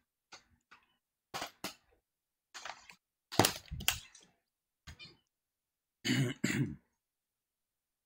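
A person coughing and clearing their throat in a string of short bursts, the loudest two close together about six seconds in.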